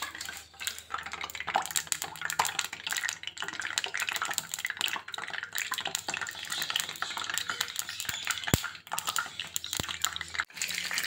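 Spoonfuls of besan batter sizzling and crackling as they deep-fry in hot oil in a frying pan. A sharp click stands out about eight seconds in.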